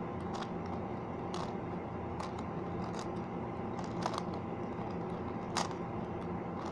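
Scattered, irregular clicks of a 5x5 Rubik's cube's layers being turned by hand, over a steady low hum.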